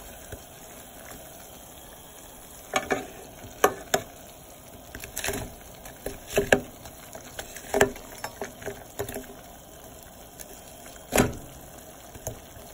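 Frozen baby carrots being dropped and pushed into a pot of boiling broth: a steady bubbling with about half a dozen irregular knocks and splashes as the carrots go in.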